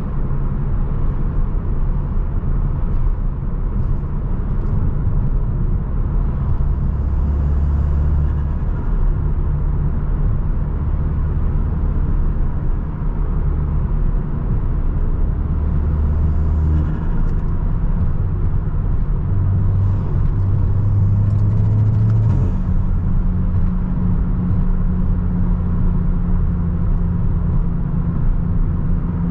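Audi S3's turbocharged 2.0-litre four-cylinder, tuned Stage 2 with aftermarket intake, turbo inlet and downpipe, running as the car drives, over a steady rumble of road noise. The engine note changes pitch several times and settles on a steadier, higher note in the last few seconds.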